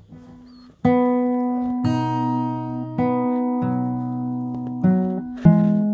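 Background music: strummed acoustic guitar chords. The first chord comes in just under a second in, and further chords follow about every second, each ringing on.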